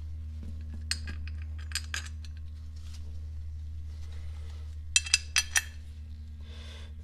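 Light metal clinks from the transmission front cover and its mounting bolts being handled and fitted against the gearbox case: a few scattered clinks in the first two seconds, then a quick cluster of louder ones about five seconds in, over a steady low hum.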